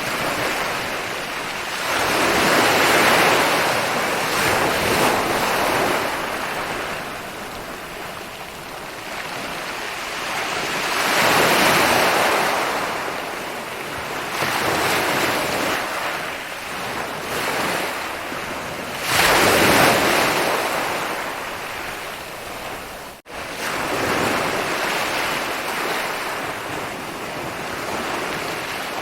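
Ocean waves breaking and rolling onto a beach, with a big wave surging in about every eight to nine seconds; one crashes in suddenly about two-thirds of the way through. The sound cuts out for an instant a few seconds later.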